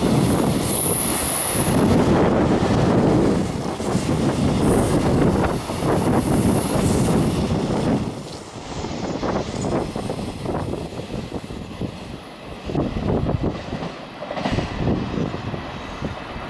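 A train running on rails: a loud, steady rumble of wheels and running gear that eases off and wavers after about twelve seconds.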